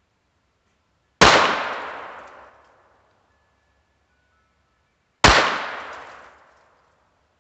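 Two shots from a Browning Buck Mark .22 LR pistol, about four seconds apart. Each is a sharp crack that rings out and dies away over about a second and a half.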